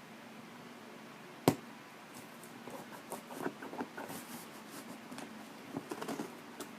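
Cutting across the packing tape of a cardboard box and working at its flaps: one sharp knock about one and a half seconds in, then scattered small taps, scrapes and rustles.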